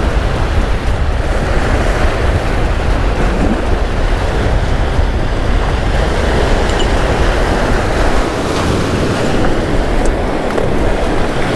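Surf breaking and washing against the stone blocks of a rock jetty, a steady rushing noise, with wind rumbling on the microphone.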